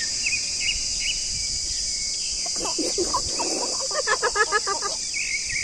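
Steady chorus of insects, crickets, with birds chirping. A person's voice cuts in around the middle, ending in a quick run of short pulses.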